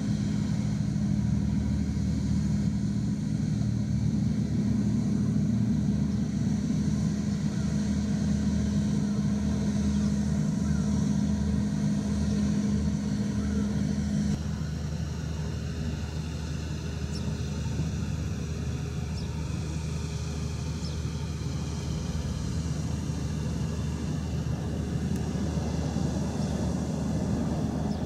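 Steady low machinery hum from a ship, with several held tones. The loudest tone cuts off abruptly about halfway through, and a slightly quieter hum carries on.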